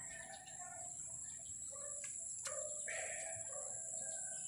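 Small birds chirping faintly, with a steady high-pitched whine underneath and two light clicks about halfway through.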